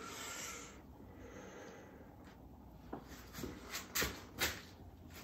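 A soft breath out through the nose, then several light clicks and knocks in the second half as the wooden bridge-clamping fixture on the acoustic guitar is handled and its thumb screws set.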